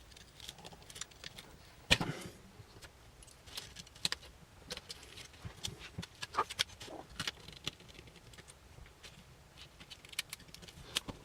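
Scattered small clicks and taps of camera parts and hand tools being handled during disassembly, the sharpest about two seconds in.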